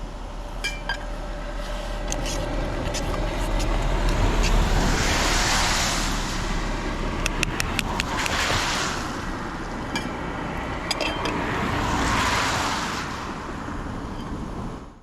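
Two vehicles passing on the road one after the other, each a swell of tyre and engine noise that rises and fades, over a steady low rumble with scattered small clicks and taps.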